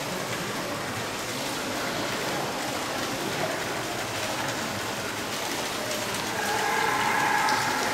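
Steady hiss of water falling, like rain. Faint high tones come in near the end.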